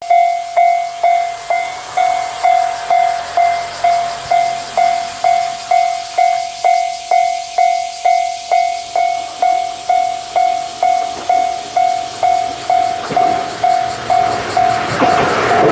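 Japanese level crossing warning bell ringing, a two-tone ding repeating about twice a second. Near the end the noise of an approaching 103-series electric train builds up beneath it.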